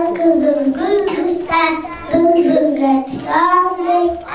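A young girl singing a song into a handheld microphone, in phrases of long held notes.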